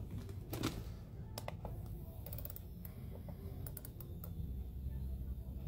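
Scattered light clicks and taps from fingers pressing the buttons of an electric nail file's control unit, setting it to its lowest speed.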